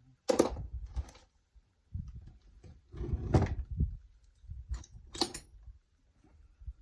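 Rummaging through small parts and tools on a workbench: a series of scrapes and knocks, the loudest about three seconds in.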